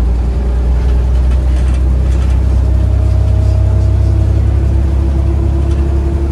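Volvo B7RLE bus's six-cylinder diesel engine and drivetrain heard from on board: a loud, steady low rumble, with a faint whine that rises slightly in pitch from about halfway through.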